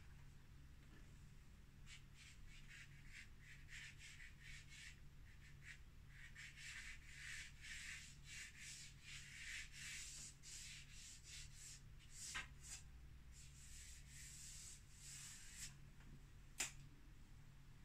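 Faint scratchy strokes of a chalk pastel stick rubbed across the painting's surface, many short strokes in quick succession. Two light clicks come later.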